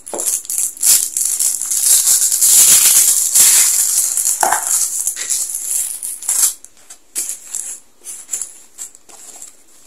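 Clear plastic wrapping crinkling and rustling as it is handled, dense and loud for a few seconds, then thinning to scattered crackles near the end.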